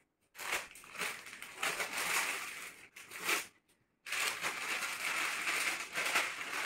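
Plastic carrier bag and gift packaging crinkling and rustling as they are handled and the bag is opened, in two stretches with a brief pause a little past halfway.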